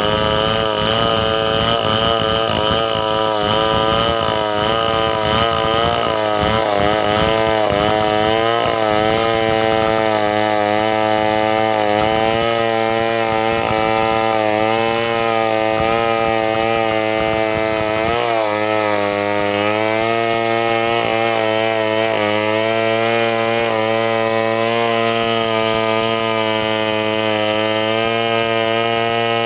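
Chainsaw engine running hard for the whole stretch, its pitch wavering and dipping repeatedly, as when it bogs into the wood. It settles to a steadier pitch about two-thirds of the way through, with a short dip near the end.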